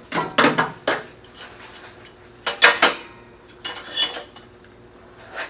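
Light metal clanks and clatter from a sheet-steel patch piece and its clamps being taken off and handled, in several short clusters, with a brief metallic ring near the four-second mark.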